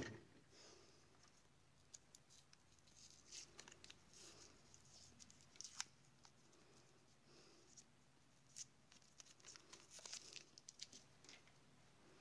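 Faint rustling and tearing of paper as the sealing band is peeled off a roll of 120 medium format film, with a few small ticks.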